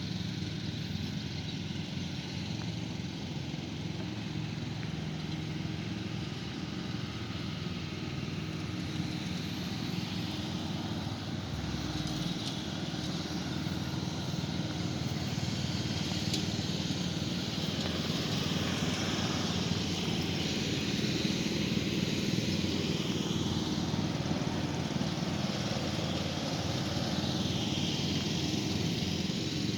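Lawn mower engine running steadily, growing a little louder over the second half.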